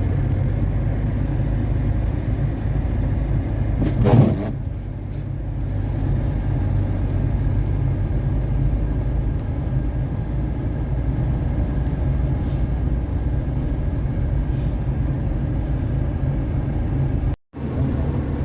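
Car on the move: a steady low engine and road rumble, with a brief louder swell about four seconds in.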